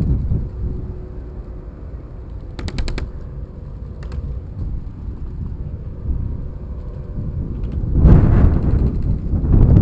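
A quick burst of about six sharp clicks of airsoft gunfire, with a single shot about a second later. A loud low rush of noise on the microphone comes near the end.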